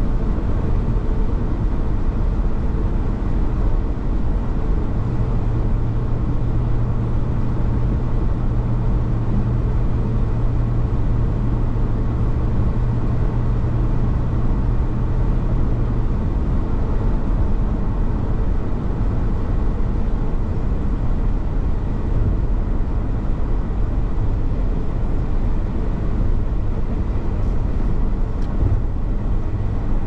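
Steady road noise heard from inside a moving car's cabin: tyres on the highway and the engine running at cruising speed. A low steady hum joins about five seconds in and fades out about ten seconds later.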